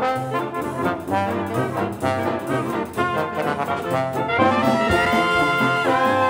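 Background music led by brass over a bouncing bass line; about four seconds in it swells into a long held chord.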